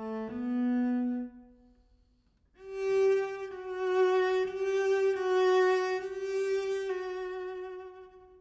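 Solo cello playing bowed notes. A lower note fades away about a second and a half in, and after a short pause a long, higher note is held through several bow changes before dying away near the end.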